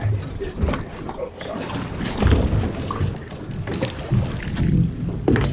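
Wind buffeting the microphone and water washing against the hull of a fishing boat at sea, with scattered knocks and handling noise.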